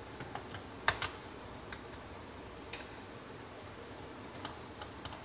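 Keys on a Dell Precision laptop keyboard being pressed, a dozen or so irregular clicks, with one sharper, louder click a little under three seconds in.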